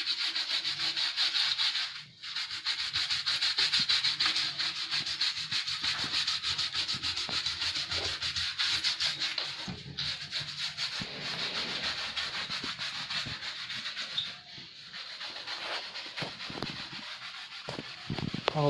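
Steady hissing, scrubbing noise of a split air conditioner's drain pan being washed, with brief breaks about 2 and 10 seconds in.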